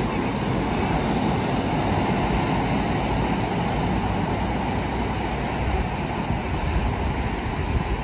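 Ocean surf breaking and washing up the beach in a steady rush, with wind buffeting the microphone.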